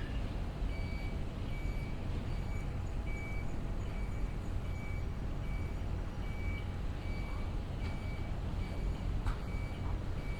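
A high electronic beep repeating about twice a second, over a steady low rumble of city traffic.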